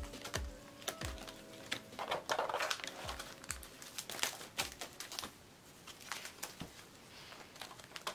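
Clear plastic binder sleeves and photocards being handled: sharp taps and clicks as cards are tapped and slid into the pockets, with a louder plastic crinkle about two seconds in.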